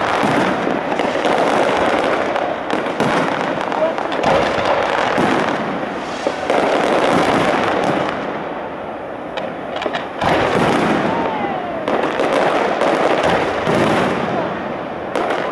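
Fireworks display: a dense run of bursts and crackling, with a short lull about eight seconds in before the bursts pick up again.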